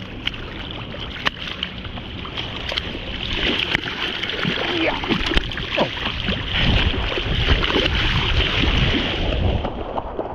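Shallow water sloshing and washing at the shoreline, with wind buffeting the microphone; the rush and rumble grow stronger about a third of the way in.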